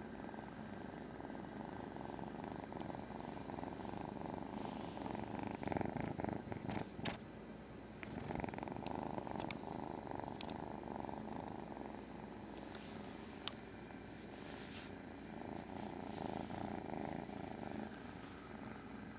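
Domestic cat purring close to the microphone, in spells of a few seconds that rise and fall. There is one brief click a little past the middle.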